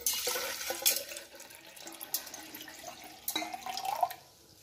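Meltwater pouring out of a stainless steel insulated bottle and splashing into a steel mug. The pour is loudest at the start, a short rising gurgle comes near the end, and it stops about four seconds in.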